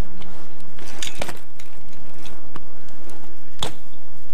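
A BMX bike being ridden on asphalt: sharp clicks and knocks from the bike, several spread over the few seconds, over a steady rumble of wind and rolling noise on the microphone.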